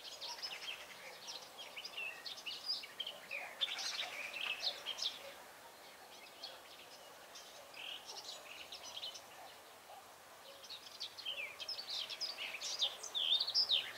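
Small songbirds chirping and singing, many quick overlapping chirps in bursts, thinning out for a few seconds midway before picking up again near the end.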